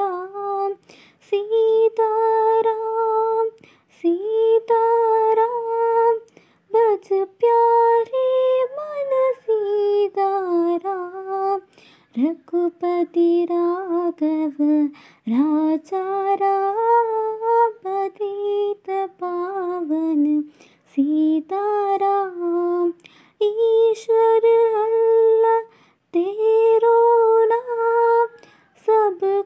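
A single female voice singing a slow melody unaccompanied. It moves in long held notes that glide between pitches, with short breaks for breath between phrases.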